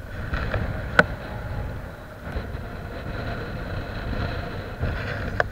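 Wind rumbling on the microphone over the wash of the sea, with a sharp metallic click about a second in and another near the end.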